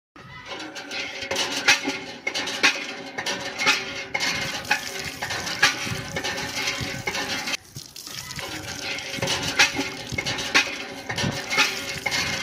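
A thin stream of water from a miniature hand pump pouring and splashing into a water-filled plastic pot, with many small irregular clicks and splashes.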